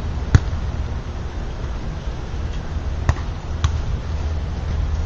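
Volleyball being played: sharp slaps of hands and forearms striking the ball, a loud one just after the start and two more close together about three seconds in, over a steady low rumble.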